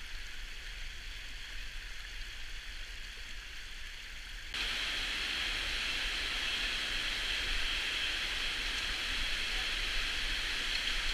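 Steady rushing noise of glacial meltwater running and dripping, stepping up in loudness about four and a half seconds in.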